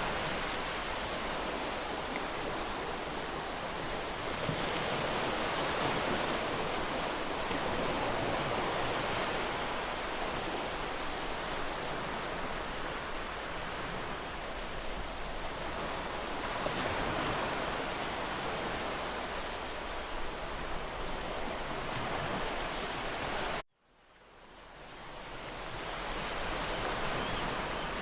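Waterfall rushing steadily with slight swells. Near the end it cuts out abruptly to near silence and fades back in over a few seconds, an edit point in the recording.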